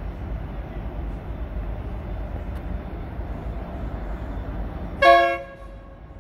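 Approaching freight train's locomotive horn giving one short blast about five seconds in, over the steady low rumble of the oncoming train.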